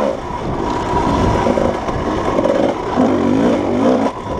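Dirt bike engine running under changing throttle, its pitch rising and falling as the rider opens and closes the throttle.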